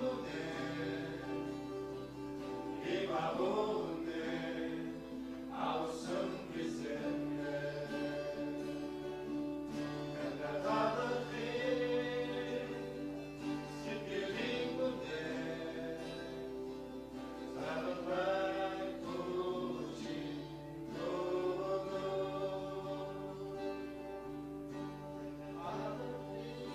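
Christian worship song: voices singing together over sustained instrumental chords.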